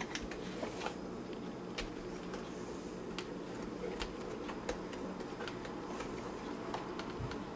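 Scattered light clicks and taps of a plastic laptop case being handled, over a steady low hum.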